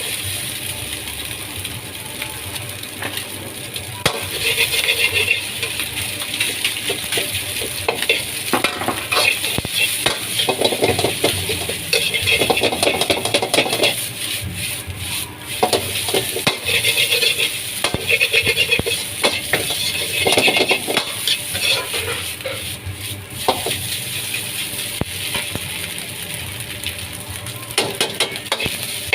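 Fried rice sizzling in a wok while a metal spatula stirs and scrapes, with many quick clanks of metal on the wok.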